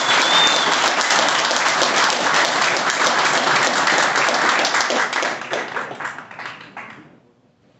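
A group of people clapping and applauding, dying away over the last couple of seconds.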